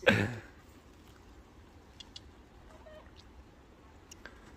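Faint trickle of a shallow woodland stream, with a few soft ticks.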